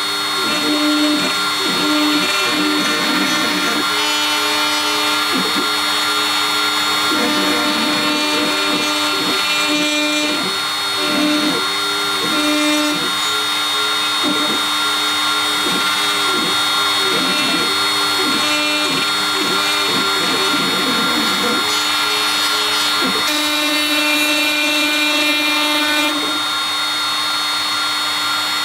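Shapeoko CNC router milling a wave relief into wood: the spindle and cutter give a steady whine, while the stepper motors sing in pitch arcs that rise and fall every half second or so as the bit traces the curves.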